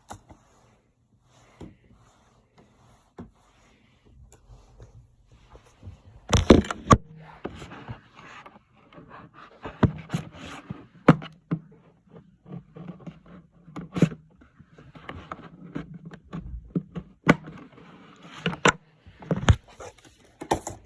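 Hands working at the packaging of small figurines: irregular scraping and rubbing with sharp clicks, busiest from about six seconds in.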